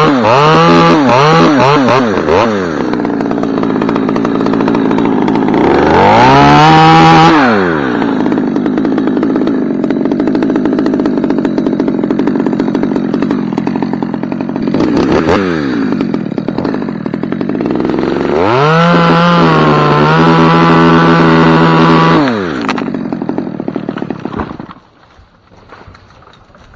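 Husqvarna two-stroke chainsaw revving up and cutting through a dead ash limb. It runs at full throttle for long stretches, drops back between them, then idles briefly and stops near the end.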